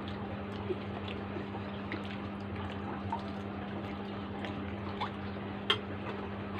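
Faint wet mouth sounds and small crunches of people eating phuchka (pani puri), with a sharper click near the end, over a steady low hum.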